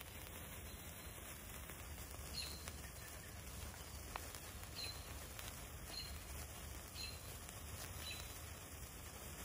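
Quiet woodland ambience with a faint steady hiss, and a small bird giving short high chirps about once a second from roughly two seconds in.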